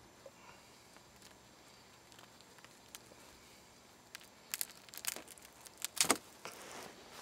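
Skin and feathers being pulled and torn off a grouse's legs by hand. Faint small crackles come at first, then a run of louder tearing and crackling sounds in the second half, loudest about six seconds in.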